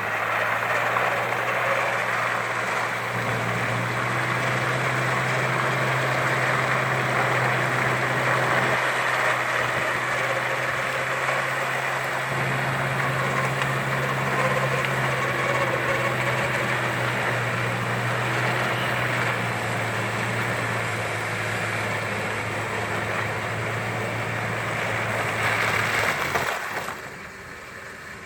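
Off-road vehicle engine running steadily at idle during winching out of mud, with a steady hiss over it. The sound drops away abruptly about two seconds before the end.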